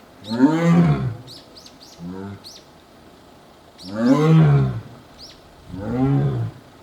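Siberian tiger calling: four roaring calls, each about a second long and rising then falling in pitch, the second one short and weaker.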